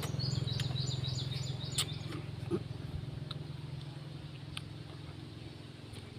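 A steady low engine drone that slowly fades away, with a bird chirping in quick high notes during the first couple of seconds.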